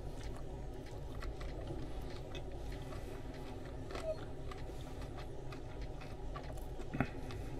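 A person chewing a mouthful of sandwich, with soft scattered mouth clicks and a couple of slightly louder ticks, over a steady low room hum.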